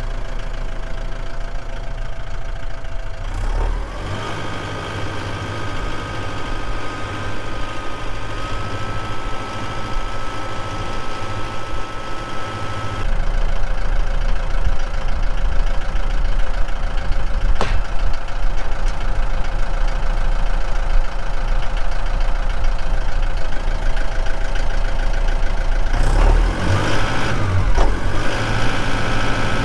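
Farm tractor engine running steadily with a whine above it that steps up in pitch about four seconds in. The engine grows louder about halfway through, and its note shifts again near the end. A single sharp click is heard in between.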